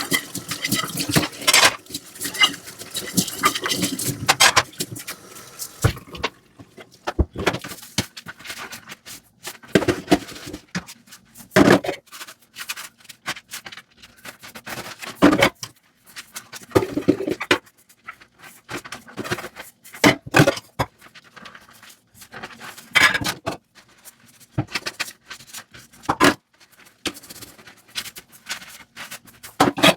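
Dishes being washed by hand at a sink. Water runs for the first few seconds, then come irregular clinks and scrapes of plates and utensils being handled and scrubbed.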